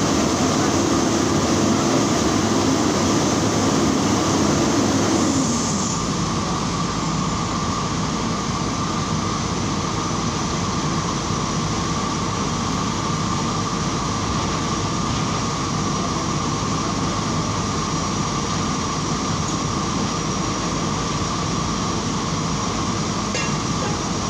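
Steady machinery noise with a hum that stops about five seconds in, leaving an even rumble and hiss.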